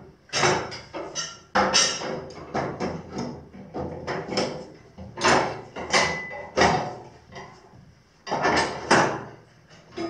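Metal parts of a jointer's cutterhead assembly being handled and worked loose during disassembly: a string of irregular knocks and clanks, a few with a short metallic ring.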